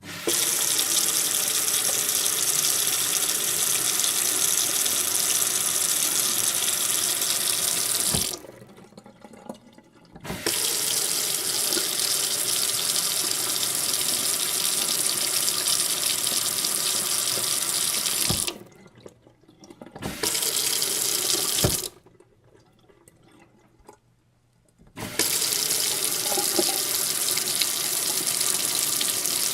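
Water tap running into a sink, a steady splashing hiss. The flow stops three times, for about two, two and three seconds, and starts again each time.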